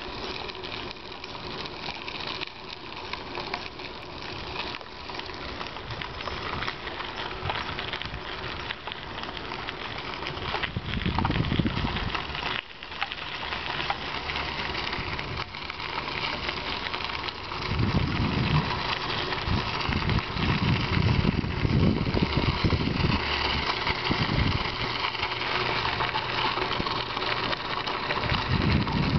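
Bicycle ride heard from the handlebars: tyre noise and a constant rattle and clatter of the bike over a rough path. Gusts of wind buffet the microphone now and then, most strongly in the second half.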